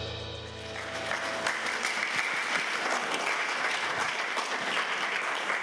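A recorded song's final chord fades away, and an audience in a hall applauds steadily.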